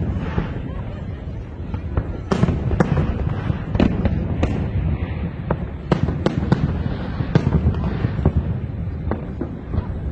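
Aerial fireworks shells bursting: a string of sharp bangs, roughly one a second, over a continuous low rumble from the display.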